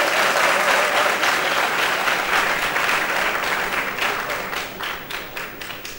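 Audience applauding, a dense round of clapping that thins out near the end into a few scattered claps.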